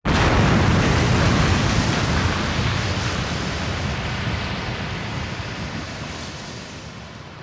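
A loud rushing noise with no pitch or beat, like surf or a white-noise sweep, sets in suddenly and then fades slowly, its hiss dying away first.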